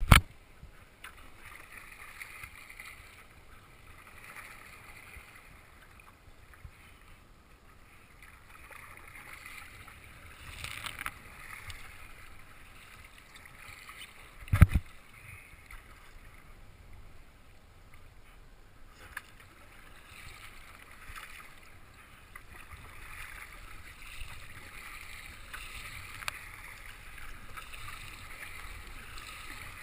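Water sloshing and splashing around a sea kayak as it is paddled through small waves, swelling and easing with the strokes and swell. Two sharp knocks stand out, one at the very start and one about halfway through.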